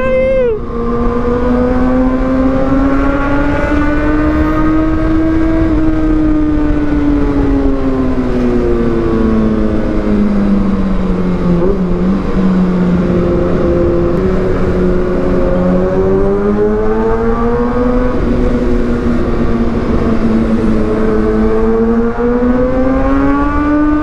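Kawasaki ZX-6R 636 inline-four running through an Austin Racing GP1R aftermarket exhaust while being ridden. The exhaust note climbs a little in pitch over the first few seconds, sinks to its lowest about halfway, then climbs again near the end, over a low rush of wind.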